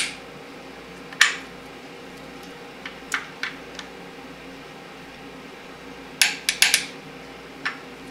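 Sharp metallic clicks and clinks of a socket-drive torque wrench being worked on the rear main cap bolts of a Chrysler 383 big-block. The clicks are single, apart from a quick run of four about six seconds in.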